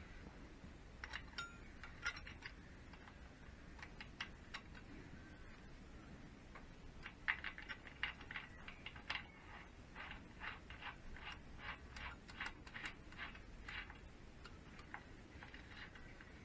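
Light metallic clicking as a tab washer and nut are fitted by hand onto the Triumph Bonneville gearbox sprocket. The clicks are scattered at first and come quick and close together for several seconds in the middle.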